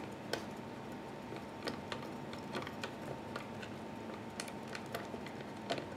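Faint, irregular small clicks and ticks of a hand screwdriver driving a small screw home inside an open Mac mini, tightening down the logic board.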